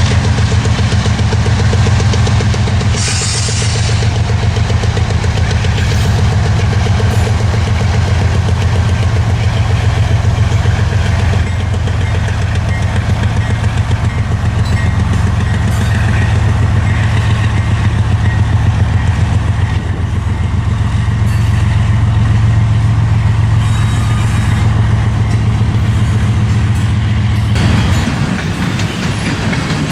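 Diesel-electric freight locomotives running close by with a loud, steady low engine drone. Near the end the engine sound drops away and the rattle of passing freight cars takes over.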